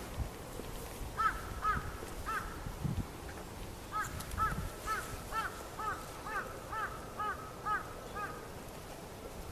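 Crows cawing: three harsh caws, then after a short gap a rapid run of about ten caws, a little over two a second.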